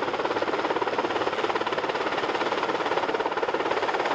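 Sikorsky VH-3D Sea King helicopter descending to land, its rotor beating in a fast, steady chop.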